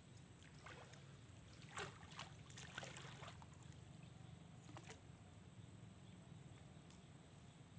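Near silence: a faint low hum under a steady thin high-pitched whine, with a few faint scattered clicks in the first five seconds.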